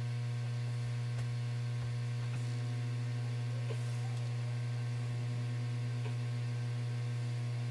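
Steady electrical mains hum: a low, even drone.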